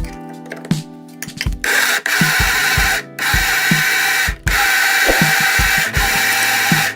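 Electric kitchen blender running in several short bursts with brief stops between them, over background music with a steady beat.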